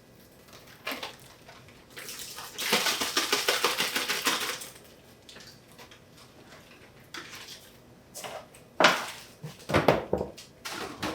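Two packs of cream cheese being unwrapped and dropped into a stand mixer bowl. A couple of seconds of close crinkling and scraping come first, then a few sharp knocks near the end as the blocks go into the bowl.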